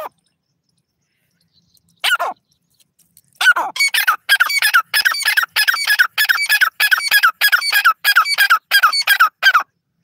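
Grey francolin (teetar) calling: one short falling call about two seconds in, then from about three and a half seconds a loud, fast, evenly repeated run of call notes that stops shortly before the end.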